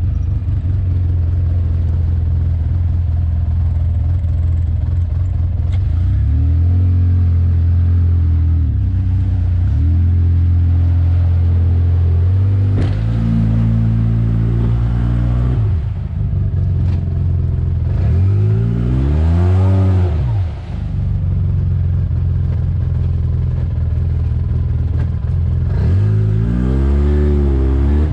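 Side-by-side UTV engine running under throttle while driving through mud and a deep water hole, revving up and dropping back several times, most sharply about two-thirds of the way through and again near the end.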